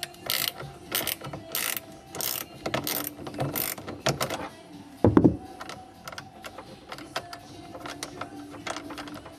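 Ratchet wrench clicking in about six quick strokes on the 10 mm bolt of the car battery's positive terminal clamp, then one loud thump about five seconds in, followed by faint small clicks.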